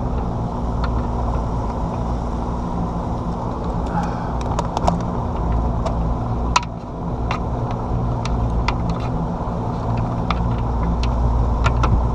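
Boat motor running steadily under way, a low hum mixed with water and wind noise, with scattered sharp clicks throughout.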